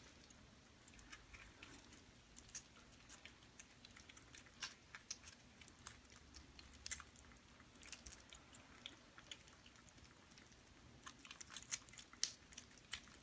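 Faint, irregular small clicks and crunches of kittens eating dry kibble, growing busier near the end.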